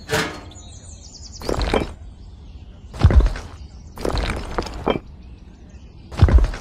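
Miniature clay bricks clattering and knocking together as they are dropped by hand onto a pile, in five short bursts about a second and a half apart.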